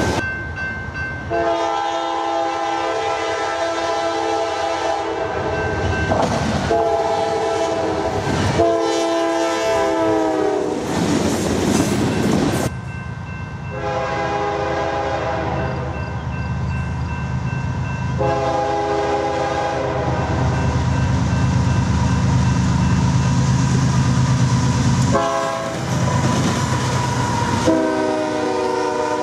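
Approaching diesel freight locomotive sounding its multi-note air horn in a series of long blasts and one short one. Its engine rumble builds as it draws near, and it passes close near the end.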